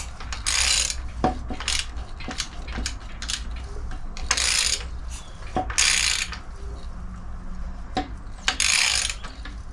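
VW T25 1.9-litre water-cooled flat-four being turned over by hand with a socket ratchet: the ratchet clicks, and four times a hiss of air rushes out as a cylinder comes up on compression. There is some compression, but not a lot.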